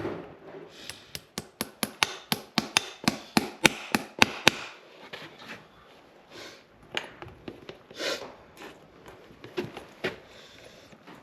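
Farrier's hammer striking in a quick, even series of sharp knocks, about four a second for several seconds, followed by a few scattered knocks.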